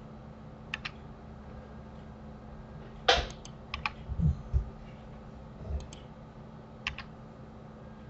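Computer keyboard keys and mouse buttons clicking several times, often in quick pairs, with the loudest click about three seconds in. A few soft low thumps follow it, over a steady low hum.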